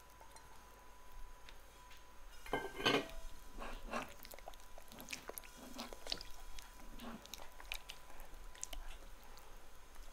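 Wire whisk beating a thick, wet mixture in a glass bowl: irregular squelching clicks and light taps of the wires against the glass, with a louder flurry about two and a half seconds in.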